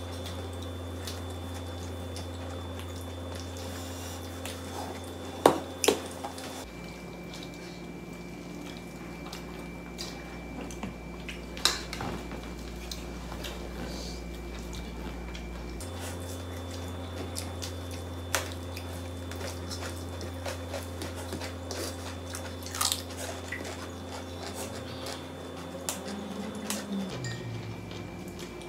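Handling and eating food from ceramic bowls on a floor: fingers working through food and vegetables, with several sharp clinks of dishes. A steady low hum runs underneath.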